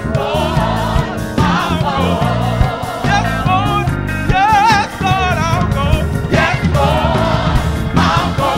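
Live gospel music: a male lead singer sings into a handheld microphone over a band with bass, drums and keyboard. The voice bends and wavers through drawn-out notes.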